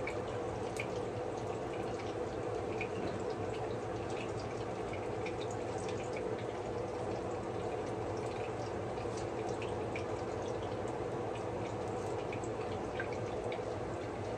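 Plantain slices frying in shallow oil in a pan: a steady sizzle with scattered small pops and crackles.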